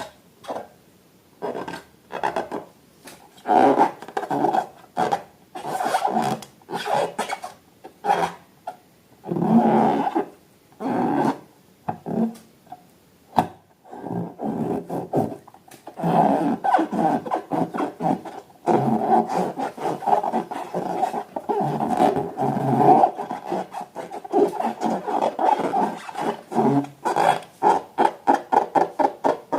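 Repeated wet rubbing and squishing strokes of hands working slime and balloons, uneven at first and then quicker, at several strokes a second, near the end.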